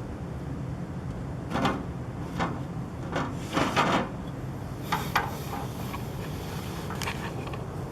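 A steady low hum, the unexplained noise heard from a house window at night. Over it, several short knocks and scrapes come up near the microphone, bunched in the first half.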